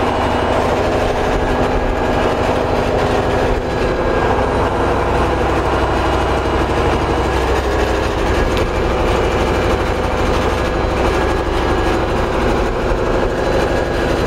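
Engine-driven generator set of a biomass gasification power plant running steadily under power, a loud continuous engine drone that holds even throughout.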